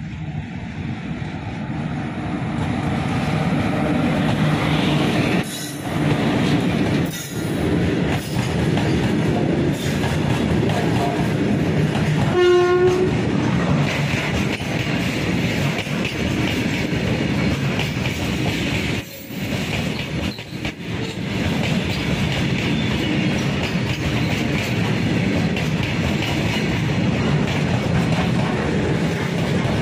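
Electric locomotive passing close, followed by a long freight train of covered box wagons rolling by: a steady heavy rumble with rhythmic wheel clatter on the rail joints, building over the first few seconds. A brief horn blast sounds about twelve seconds in.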